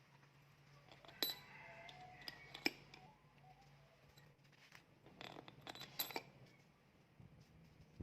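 Small steel parts, the compressor's through-bolts and shim, clinking as they are handled and set down: sharp clinks about a second in and twice near three seconds, then a cluster of clinks around five to six seconds, over a faint steady hum.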